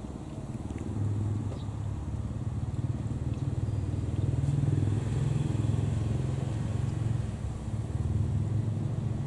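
An engine running close by, a low pulsing hum that grows louder over the first few seconds and then holds steady.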